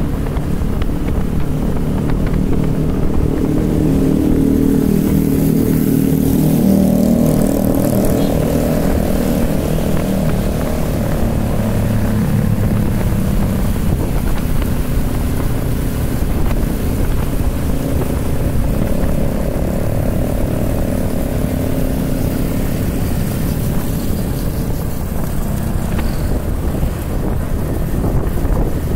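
A motor vehicle's engine running on the move, its note rising and falling twice.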